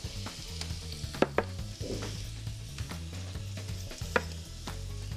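Food sizzling in a hot frying pan, with a few sharp clicks about a second in and again about four seconds in.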